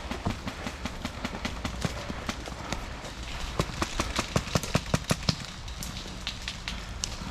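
Footsteps crunching through dry leaves and twigs, an irregular run of sharp snaps and clicks that grows denser and louder in the middle.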